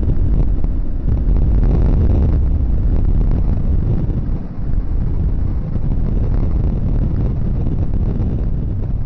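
Loud, continuous low rumbling noise that swells and dips without any distinct events.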